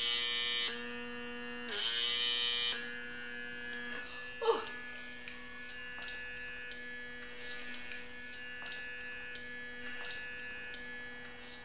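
PMD Kiss lip-plumping device's small suction pump running with a steady electric hum, pulsing twice with loud bursts of noise in the first three seconds. A short vocal sound comes about four and a half seconds in, then the hum carries on with faint, evenly spaced clicks.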